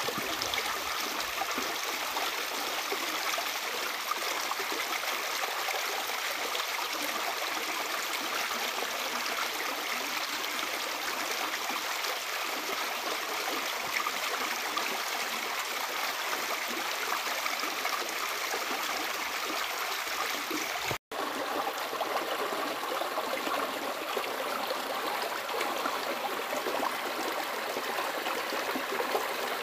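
Shallow river running over rocks: a steady rush and gurgle of water, broken once by a momentary dropout of all sound about two-thirds of the way through.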